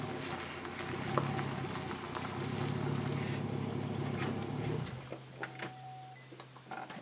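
Pickup truck engine running as it tows a boat trailer forward, dropping to a quieter steady idle about five seconds in, with a few clicks near the end.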